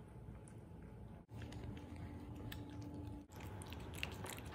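Cats eating wet food from metal bowls: soft chewing and lapping, with a run of small wet clicks that gets louder and busier near the end.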